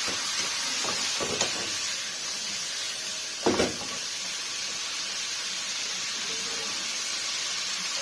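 Steady sizzling hiss of a stir-fry in a wok, battered fried chicken pieces being tossed with sliced peppers and onion. A few knocks come through, a sharp double knock the loudest about three and a half seconds in.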